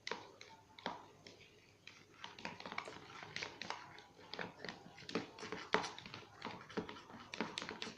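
A spatula stirring sticky glue-based slime mixture in a bowl: an irregular run of small clicks and smacks, several a second.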